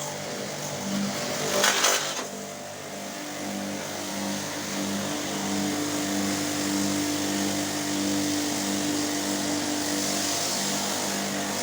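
Pressure washer running while cleaning an air conditioner: the pump motor hums with a steady pulsing drone under the hiss of the water jet. There is a short louder burst of spray about two seconds in.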